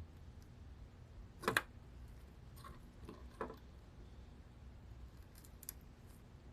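A few short, sharp clicks from small hand tools at an electronics repair bench, the loudest about a second and a half in, with softer ones near three and a half and five and a half seconds, over a faint low hum.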